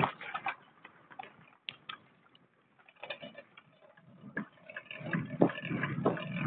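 Handling noise from a moving camera: scattered sharp clicks and knocks, then louder rubbing and rustling from about five seconds in.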